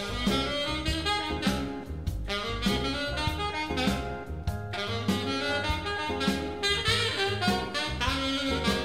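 Saxophone playing a jazz melody over a backing track with bass and drums.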